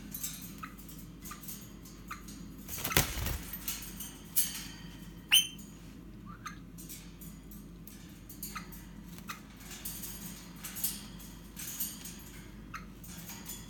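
Scattered light clicks and rustles in a birdcage, with a louder rustling thump about three seconds in and a single short rising chirp from a golden-mantled eastern rosella a little after five seconds in.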